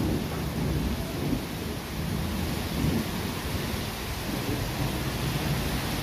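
Heavy rain pouring onto a paved street, a steady hiss with a low, uneven rumble beneath it.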